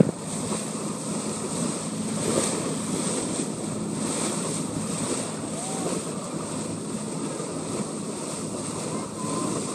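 Wind buffeting the microphone over the wash of water along a tour boat's hull, with a low steady engine hum underneath.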